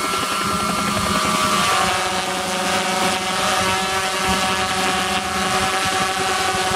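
Small RC quadcopter flying: a loud, steady buzz with several steady tones, shifting slightly in pitch about two seconds in.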